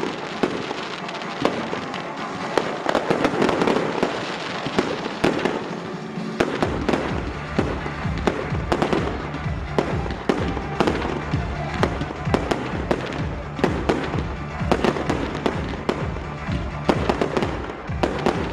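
Fireworks display: a dense run of bangs and crackle from bursting shells. Music with a steady bass beat comes in about six seconds in.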